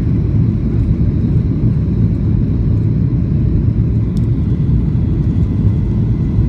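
Boeing 737 cabin noise on approach: a steady low rumble of the jet engines and airflow, heard from inside the cabin, with a faint high steady tone and one small click about four seconds in.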